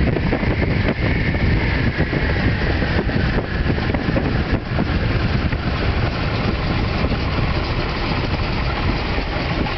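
A 1929 biplane's engine running steadily as the plane taxis on the ground, heard from the open cockpit as a loud, even rumble.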